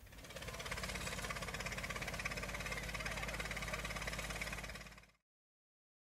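An engine running with a fast, even beat, fading in at the start and cut off about five seconds in.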